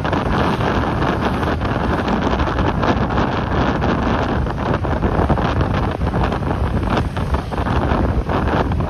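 Steady, loud wind noise rushing over the microphone of a camera carried along a road by a moving vehicle.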